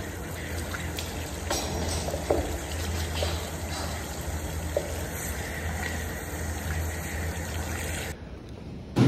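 Water from a sink tap running steadily into a washbasin as hands are rubbed under the stream. The running cuts off suddenly about a second before the end, followed by a short, loud thump.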